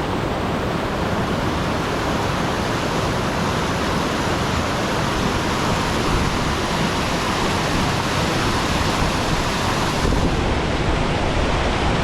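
Steady rush of high floodwater pouring through a river spillway, an even roar of water.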